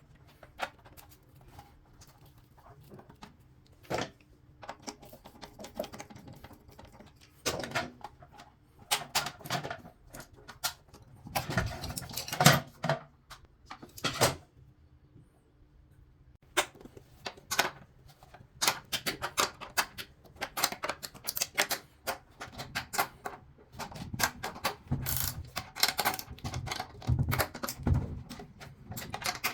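Irregular clicks, taps and clatter of hand work, with denser bursts of clatter near the middle and again near the end.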